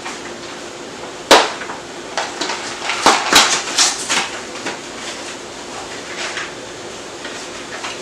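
Kitchen handling noises at a counter: one sharp knock about a second in, then a run of clicks and clatter for a few seconds, with lighter ticks after, over a steady low hum.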